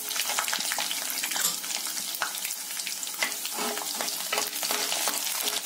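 Peanuts, chana dal and mustard seeds frying in hot oil in a kadai for a tempering: a steady sizzle with many small crackling pops, and a steel ladle stirring through the pan.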